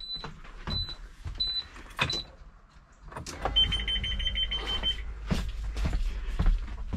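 School bus dashboard warning beeper: short high beeps about every two-thirds of a second for the first two seconds, then a steady buzzer tone for about a second and a half, over a low rumble and scattered knocks.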